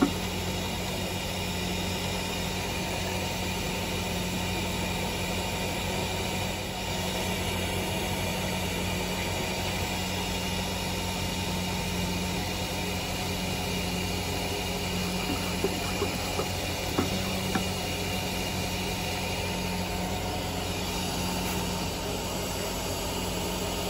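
Steady mechanical hum of carpet-cleaning equipment running, with a couple of faint knocks about two-thirds of the way in.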